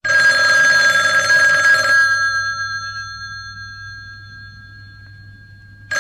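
Old-style telephone bell ringing for about two seconds, then ringing out and fading, with a second ring starting just at the end.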